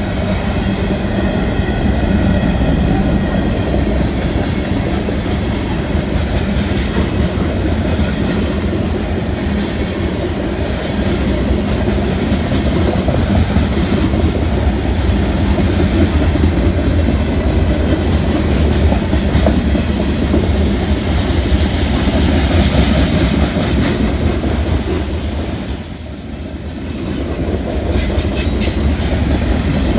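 Freight cars of a BNSF manifest train rolling steadily past, a continuous rumble of steel wheels on rail with clickety-clack. A thin, very high-pitched steady squeal joins in for the last eight seconds or so.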